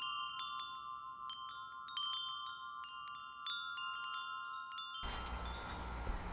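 Wind chimes ringing: irregular, overlapping strikes at a few fixed pitches, each note ringing on. About five seconds in, a steady rushing hiss comes in and the chimes fade under it.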